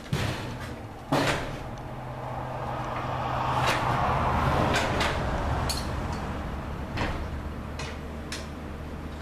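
Metal clicks and knocks as a clevis pin is worked into the garage door opener's track bracket, with a swell of fabric rustling in the middle where a sleeve rubs close to the microphone.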